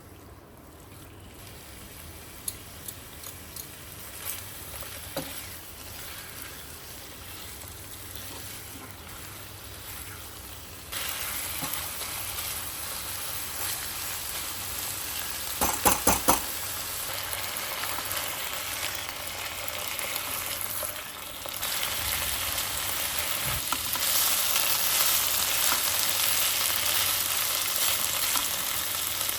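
Oil sizzling as food fries in a pan, the sizzle steadily building and jumping louder about a third of the way in and again later. Near the middle come a few quick sharp knocks, like a utensil striking the pan.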